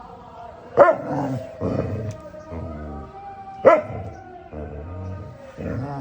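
Pet dog barking back, with two loud sharp barks about a second in and near four seconds and lower grumbling vocal noises between them, over background music.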